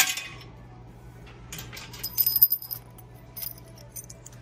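A short burst of metallic jingling and clinking, a cluster of sharp clicks with a ringing high tone about two seconds in, preceded by a brief rustle and followed by a few scattered clicks, over a low steady hum.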